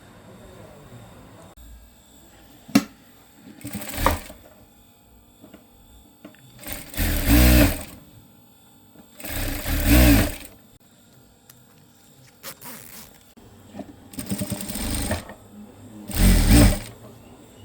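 Sewing machine stitching in several short runs of a second or so, stopping and starting with pauses between, and a sharp click early on.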